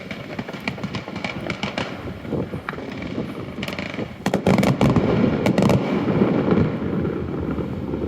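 Aerial fireworks going off: a rapid string of crackling bangs that swells into a dense, loud volley of bursts about four seconds in.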